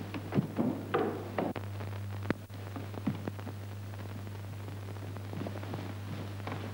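Footsteps and soft knocks in the first couple of seconds, a man getting up and going down a staircase, then only faint ticks over a steady low hum.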